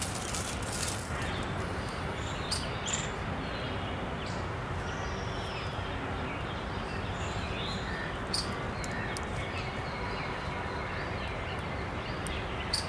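Steady outdoor background noise, with a few short, faint bird chirps and clicks scattered through it.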